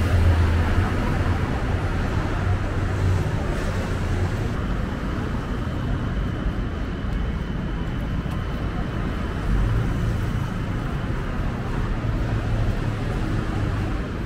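Steady city road traffic: a constant hum of car and motorbike engines and tyres. A deeper engine rumble swells in the first few seconds and again over the last five or so.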